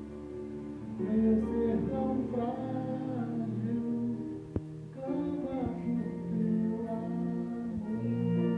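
Music with singing voices, and a single sharp click about halfway through.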